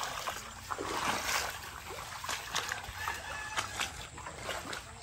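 Footsteps splashing through shallow muddy floodwater: an irregular run of wet steps.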